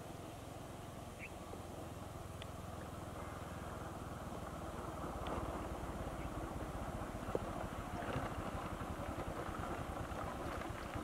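Small motorcycle engine running as the bike comes along a dirt track, growing gradually louder as it approaches.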